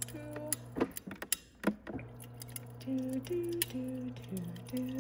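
Refrigerator door water dispenser running into an insulated metal bottle, with a steady low hum and scattered clicks and knocks. Soft background music with short plucked notes comes in about three seconds in.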